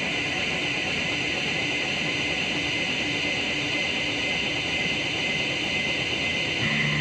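Experimental soundtrack music: a steady, noisy drone like a hissing wash of sound, with a faint high note held over it and no beat. Near the end, lower held notes come in.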